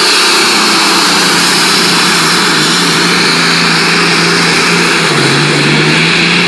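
Turbocharged diesel pulling truck engine running flat out under load as it drags a weight-transfer sled, turbos whistling. Loud and steady, its pitch sagging briefly about five seconds in and then recovering.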